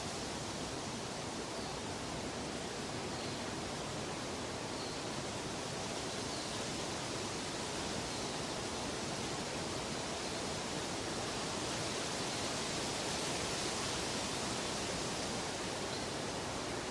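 Steady, even rushing noise of a nature ambience, turning a little brighter about two thirds of the way in, with a few faint short high chirps now and then.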